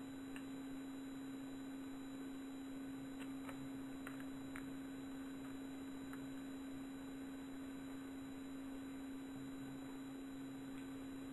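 A steady low electrical hum over a faint hiss, with a few faint ticks about three to five seconds in.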